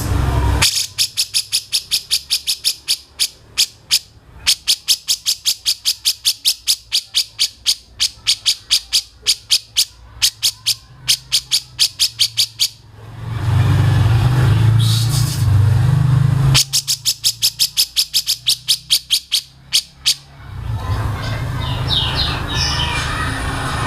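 A caged songbird calling a long run of sharp ticking notes, about four or five a second, broken once by a few seconds of low rumbling noise.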